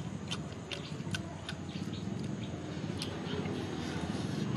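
Close-up chewing and lip smacking from people eating grilled meat by hand, with scattered sharp wet mouth clicks several times a second.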